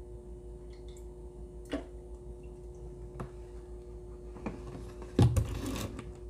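Light clicks and a louder knock about five seconds in, followed by a brief rustle, from handling a cooking-oil bottle while filling a deep fryer. A steady hum runs underneath.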